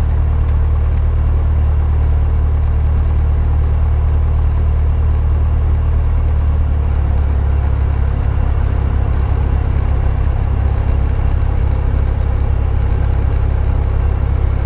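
Cessna 172's piston engine running at low taxi power, a steady low drone heard from inside the cabin. Its pitch dips slightly about halfway through.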